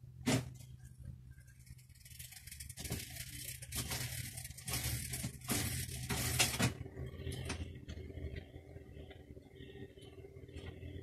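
A BMX pedal being worked off its crank arm with a hand tool. A sharp metal click comes first. Then, from about two seconds in, several seconds of scraping and rattling metal as the pedal is turned out, with a few lighter knocks after.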